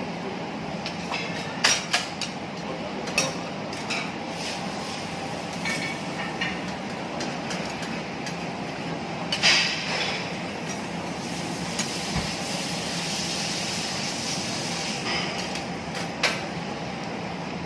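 Metal spatulas clanking against a teppanyaki griddle, four sharp strikes spread out, over a steady hiss that brightens for a few seconds past the middle.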